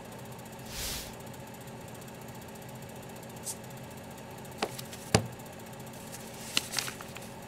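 Handling sounds of a mobile phone at a wooden desk: a soft cloth rustle about a second in as it comes out of a jacket, then a few light clicks and a sharp knock about five seconds in as it is set down on the desktop, over a steady low hum.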